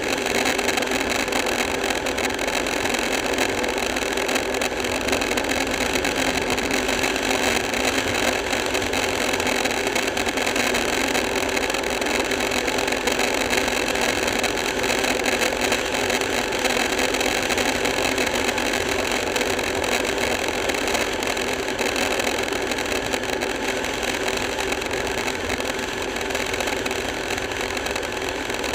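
Motorcycle engine running steadily at highway cruising speed, mixed with wind and road noise on the bike-mounted camera's microphone.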